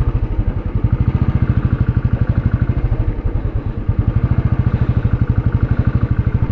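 Royal Enfield Classic 350's single-cylinder engine running at low revs as the bike rolls slowly, with a fast, even pulse.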